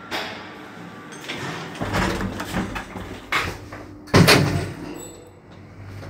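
Lift doors being worked: a knock, then rattling, then a loud bang about four seconds in as a door slams shut. A low hum sets in partway through.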